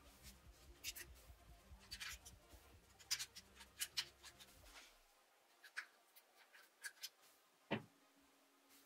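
Faint, scattered clicks and light scrapes of small steel parts and a hand tool being handled. Near the end comes a single soft knock as a small steel part is set down on a wooden workbench.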